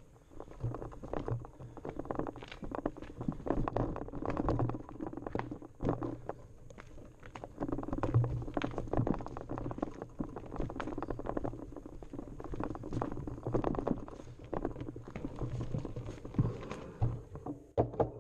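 Mountain bike rolling fast down a rocky dirt trail: tyres crunching over stones and roots, with constant clattering and knocking from the bike as it is shaken over the rough ground.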